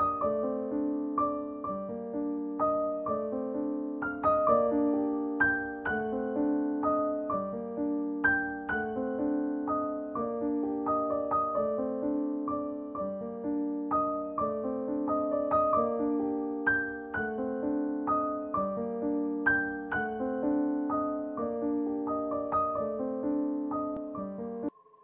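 Background piano music: a gently repeating pattern of notes over a steady bass line, cutting off abruptly just before the end.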